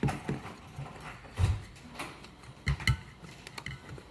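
A handful of dull knocks and thumps, the loudest about one and a half seconds in and two close together near three seconds in, from handling an electric scooter tire and its inner tube while the tube is fitted into the tire.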